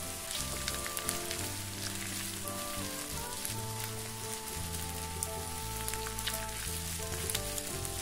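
Sausage and vegetable strips sizzling in a hot nonstick frying pan as they are stirred, with scattered light clicks of the spatula against the pan. Background music with a steady bass plays underneath.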